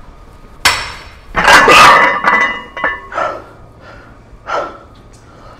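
Loaded T-bar row bar set down: a knock, then iron weight plates clanking and ringing against each other and the frame. Two hard breaths follow from the lifter.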